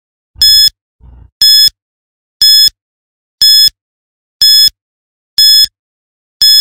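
Quiz countdown timer sound effect: a short, loud electronic beep repeating about once a second, each beep the same.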